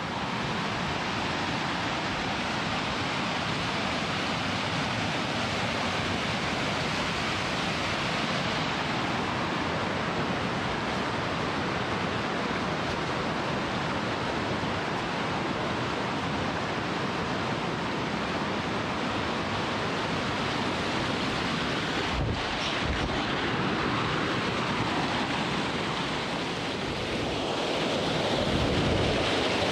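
River rapids rushing steadily over rocks and boulders.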